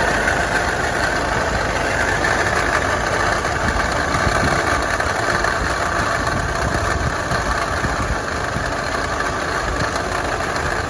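Nissan Navara pickup's idling engine heard through a mechanic's stethoscope pressed to the alternator: a steady rattle from the worn alternator bearing.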